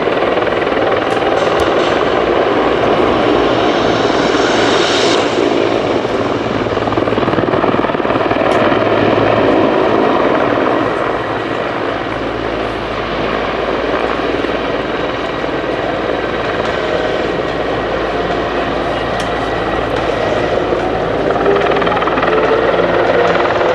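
Mil Mi-24 Hind attack helicopter flying past: its main rotor and twin turboshaft engines running loud and steady. The level dips a little midway, and a whine rises in pitch near the end.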